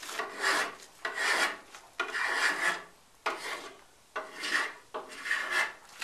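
A hand woodworking tool being worked in repeated strokes along a wooden sword blank, shaping the wood: about six rasping strokes, roughly one a second.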